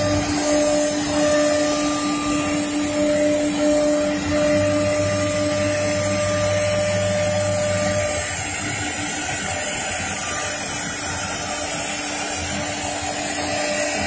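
CNC router spindle cutting into a wood board, a steady high-pitched whine over the rushing noise of the dust extraction, with a low hum that drops out about halfway through and returns near the end.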